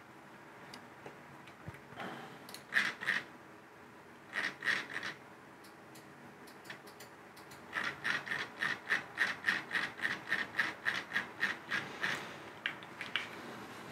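Clicking on a computer's input controls. There are two short groups of clicks, then a steady run of about four clicks a second lasting some four seconds.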